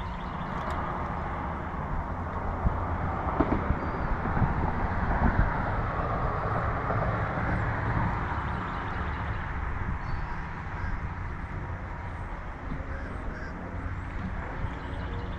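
Wind buffeting the microphone outdoors on the water: a steady low rumble with a rushing hiss that swells a little in the middle.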